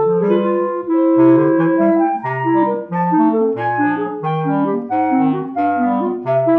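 A clarinet quartet of three clarinets and a bass clarinet plays a Colombian bambuco. The upper voices move in close harmony over a bass-clarinet line, in short rhythmic phrases.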